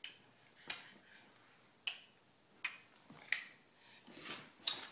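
A series of about six sharp tongue clicks at uneven intervals: the clicking sound used to call cats.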